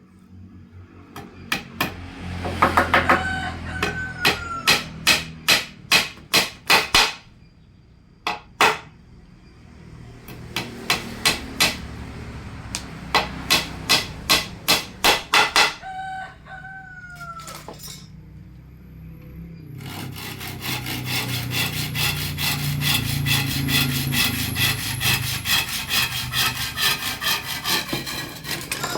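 Hammer blows on wood, struck in runs of about two to three a second, the kind of driving of nails into a wooden frame. A rooster crows twice over it, and in the last third a fast, even rhythmic scraping takes over.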